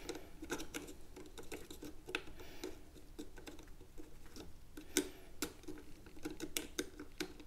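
Light clicks, taps and scrapes of a Corsair Vengeance DDR4 laptop memory stick being handled and lined up in the Intel NUC mini PC's RAM slot, with one sharper click about five seconds in.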